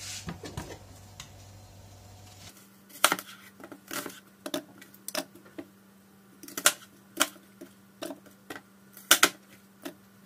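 Kitchen knife cutting an onion into chunks on a plastic cutting board: sharp, irregular knocks of the blade on the board, starting about two and a half seconds in.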